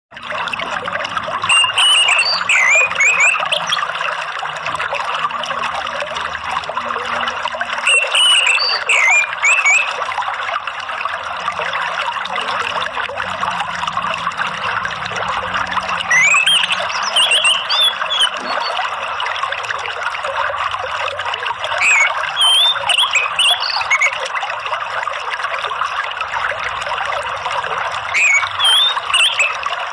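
Steady trickling, running water, with an orange-headed thrush singing short, high chirping phrases over it about every six seconds.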